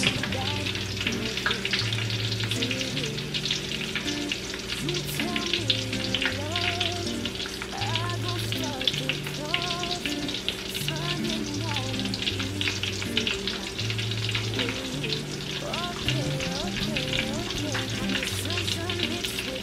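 Chopped shallots sizzling steadily in hot oil in a large aluminium pot, a constant fry crackle full of small pops.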